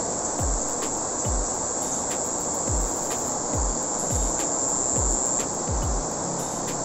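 Steady shrill chorus of insects over the even rush of a fast-flowing river, with occasional short, dull low thumps.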